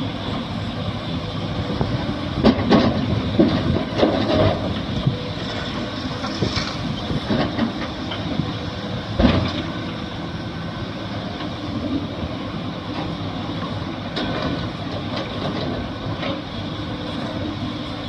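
Excavator at work: its diesel engine running steadily, with scattered metallic clanks and knocks, the loudest about nine seconds in.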